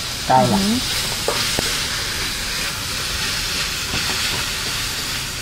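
Chicken, garlic and green vegetables sizzling in hot oil in a round-bottomed wok as they are stir-fried: a steady frying hiss with a few light clicks as the food is stirred.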